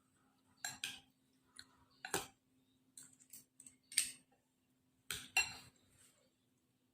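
Cutlery clinking against a noodle bowl during eating: a handful of short, sharp clinks at irregular intervals, over a faint steady hum.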